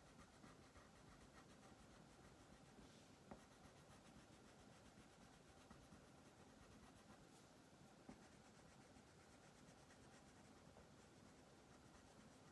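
Faint scratching of a wax crayon rubbed back and forth across paper while colouring in, with two soft clicks about three and eight seconds in.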